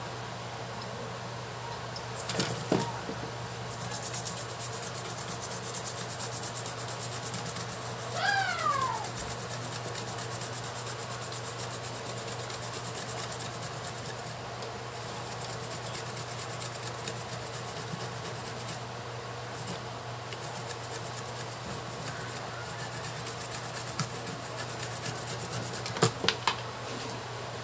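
Steady electrical hum and fan noise at a workbench, with a few small clicks and knocks from a circuit board and tools being handled. About eight seconds in comes one short, falling animal-like cry, like a cat's meow.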